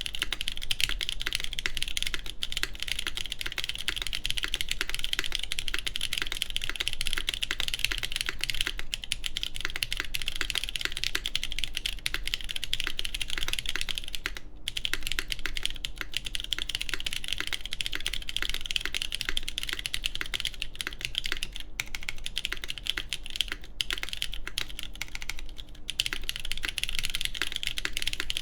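Steady fast typing on a Tech Bear TB8-TKL mechanical keyboard with lubed JWK Cotton Candy switches, GMK keycaps and an aluminum plate: a dense stream of key clacks with a brief pause about halfway through.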